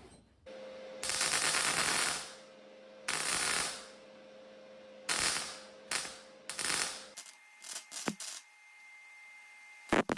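Arc welder crackling in four short bursts, the first about a second long and the others briefer, as small steel pieces are stitch-welded across a wide gap, over a steady hum from the welding machine. A few sharp clicks and taps follow after the welding stops.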